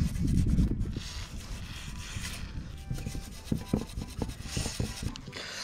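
Cotton swab rubbing and scrubbing in the valve ports of a small engine's cylinder block, a run of short scraping strokes with small knocks over gritty carbon and mud deposits.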